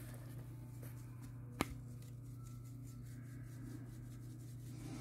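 Hands rubbing seasoning into a raw whole chicken in a plastic bowl, soft rustling and handling noise, with one sharp click about a second and a half in, over a steady low hum.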